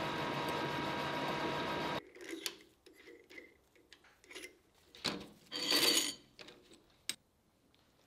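Metal lathe running steadily, cut off suddenly about two seconds in. Then small metal clicks and knocks from handling the steel workpiece at the lathe chuck, with a short scraping rub about six seconds in.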